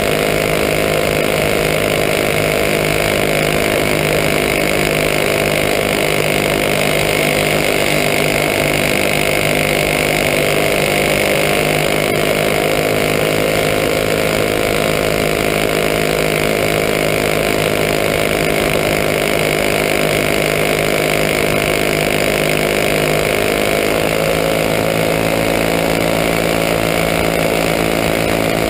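Winged champ kart's small engine running hard at racing speed, heard close up from onboard the kart. A steady, buzzing engine note that wavers a little with the throttle, its pitch shifting about 24 seconds in.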